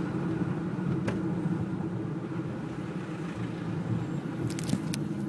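Steady low rumble of cars in slow traffic, with a sharp click about a second in and a quick run of clicks near the end.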